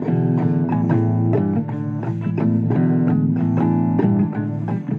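Blues guitar fill with no singing: plucked notes and chords over a low bass line, in a steady rhythm.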